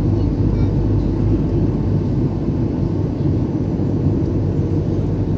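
Steady low drone of a Boeing 737's jet engines and rushing air, heard inside the passenger cabin on the descent toward landing.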